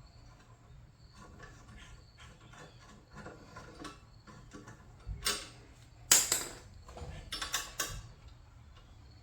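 Hand tools working bolts on a wood chipper's metal housing: scattered metallic clicks and knocks, with a loud clank about six seconds in and a few sharper knocks shortly after.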